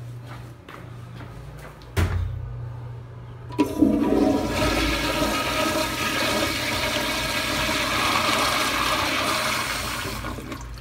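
Commercial toilet flushing: a sharp thump about two seconds in, then a loud rush of water swirling through the bowl from about three and a half seconds, easing off near the end.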